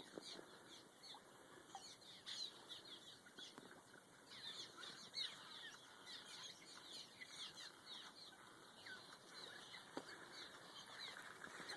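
A swarm of small nesting birds calling around overhead: many short, high chirps overlapping without a break, heard faintly.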